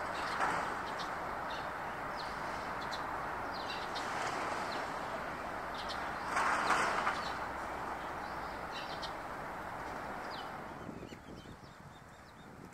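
Eurasian tree sparrows chirping: short, high chirps scattered through, over a steady rushing background noise that swells briefly about six seconds in and fades near the end.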